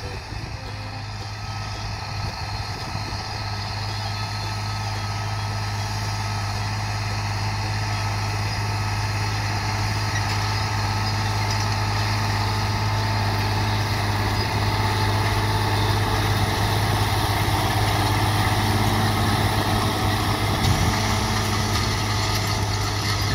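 John Deere 4320 tractor's turbocharged six-cylinder diesel engine running steadily under load while pulling a field plow through the soil. It grows louder over the first half as the tractor approaches, then holds as it passes close by.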